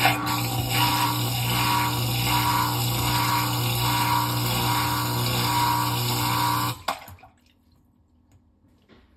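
Samsung dishwasher drain pump running, a steady motor hum with water gurgling through it in a regular pulse, then cutting off abruptly about seven seconds in. The pump is draining nonstop because the machine senses standing water; it pulls water out but can't push it all away.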